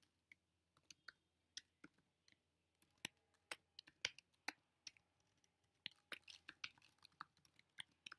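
Faint keystrokes on a computer keyboard: scattered single taps at first, then a quicker run of typing from about six seconds in.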